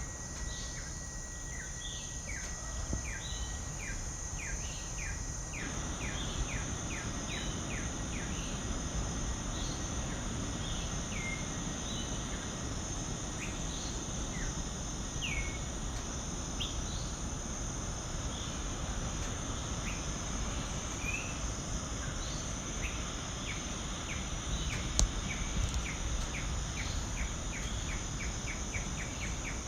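Tropical outdoor ambience: insects trilling steadily in a high band, while birds call with series of short, quick downward-sliding notes that speed up into rapid runs near the start and near the end. A low, even rushing noise lies underneath.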